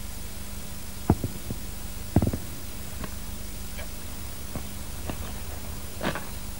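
A low steady hum with a few scattered soft knocks and clicks.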